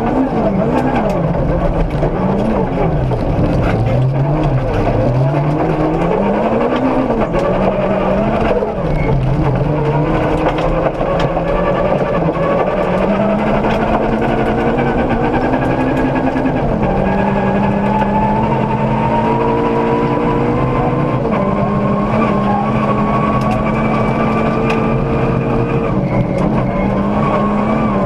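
Ford Ka 1400 rally car's engine heard from inside the cabin at full speed on a gravel stage: it revs up and down quickly through gear changes for the first ten seconds or so, then pulls long runs that climb slowly in pitch and drop at each upshift. Loose stones tick against the car underneath.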